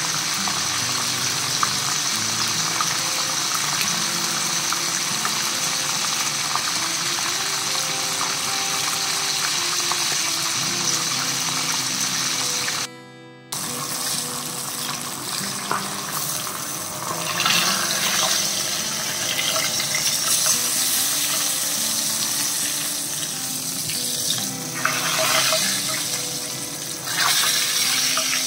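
Whole fish deep-frying in hot oil, a steady sizzle with light background music. In the second half the sizzle swells in places as tongs move and turn the fish.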